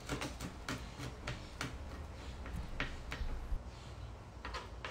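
Irregular light clicks and taps, roughly two a second, over a steady low hum.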